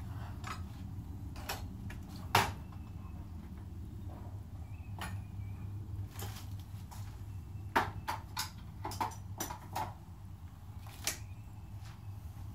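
Scattered sharp knocks and clicks in a small room over a steady low hum. The loudest knock comes about two and a half seconds in, and a quick run of them falls between about eight and ten seconds.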